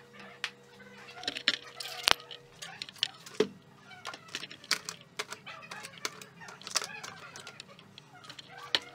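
Electric cords and plastic plugs rustling and clattering as a hand rummages through a box of cables to pull out a mains plug, with irregular clicks and knocks over a faint steady hum.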